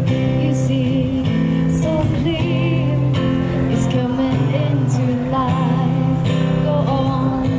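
A woman singing a slow song into a microphone while accompanying herself on acoustic guitar, the sung notes held with vibrato over sustained chords.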